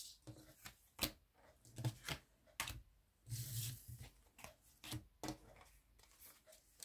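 Tarot cards being shuffled and handled: scattered soft clicks and rustles, with a longer swish about three and a half seconds in.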